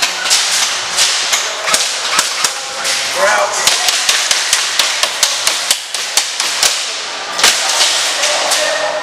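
Airsoft guns firing in an indoor arena: a rapid, irregular run of sharp cracks and BB impacts, several a second, with one louder crack near the end. A short shout cuts in about three seconds in.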